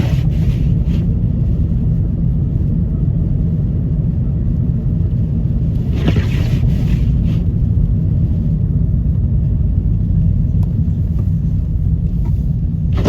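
Steady low rumble of a car's engine and road noise heard from inside the cabin, with a brief higher hiss about six seconds in.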